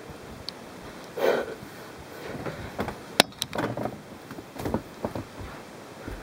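Handling noise: scattered knocks and rustles, with a louder bump about a second in and a sharp click about three seconds in.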